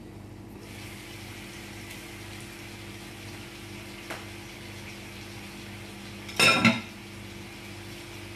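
Spiced cauliflower and potato sizzling softly in an open frying pan as its glass lid is lifted off, over a steady low hum. A light click comes about four seconds in, and a short, loud clatter of cookware about six and a half seconds in.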